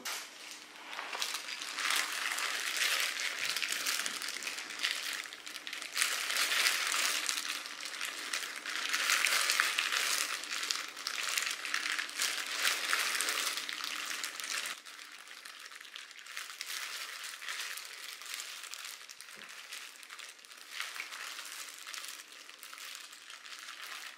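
Thin plastic gloves crinkling, with wet rustling and water sloshing, as blanched tomatoes are handled and peeled in a bowl of ice water. The rustling gets quieter about halfway through.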